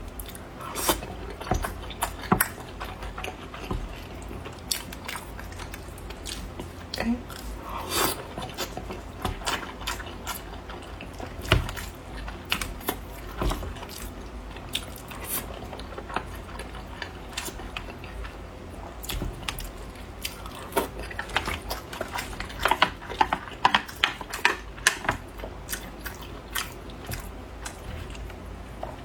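A person eating close to the microphone: chewing and biting, with many short wet smacks and crunches that come thicker in the last third.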